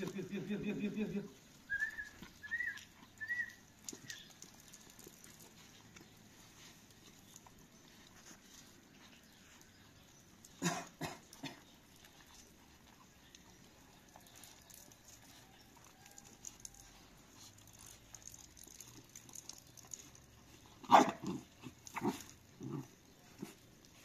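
Puppies feeding on scraps, with three short rising whimpers about two seconds in; otherwise faint, broken by a few sharp clicks around the middle and a cluster of knocks near the end.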